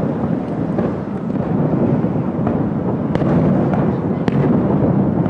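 Fireworks display: a continuous rumble of booms, with a few sharp cracks standing out about three and four seconds in.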